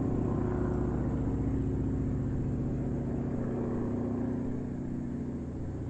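Airplane engine drone as the plane moves away after flying over, a steady low hum with several even tones that slowly fades.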